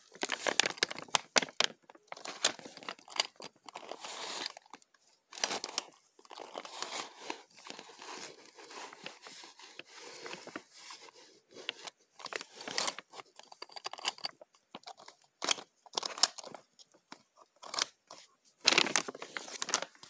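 Irregular handling noise from a cardboard-and-tape mock-up door and its doorknob and deadbolt: rustling and scraping of cardboard and tape, broken by many sharp clicks and knocks.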